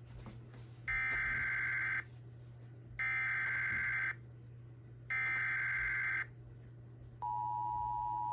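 Emergency Alert System SAME header: three identical bursts of digital data screech, each about a second long with a second's gap between them. Near the end the steady two-tone EAS attention signal starts up, marking the start of a relayed severe thunderstorm warning.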